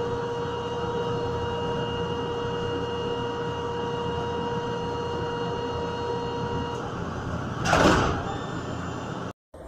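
Guadalajara light-rail train's door-closing warning tone: one steady electronic beep held for several seconds over the hum of the train. It stops about seven seconds in, followed by a loud whoosh falling in pitch as the doors slide shut.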